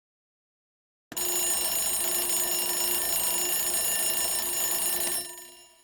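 Alarm bell ringing continuously, starting suddenly about a second in, then cutting off after about four seconds and ringing out briefly.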